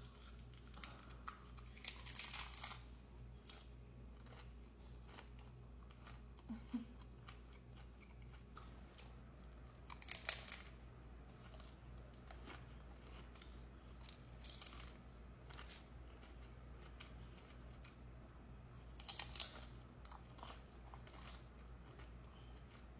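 Close-up biting and chewing of crunchy hard taco shells: three louder crunching bites several seconds apart, with small crackles of chewing between them.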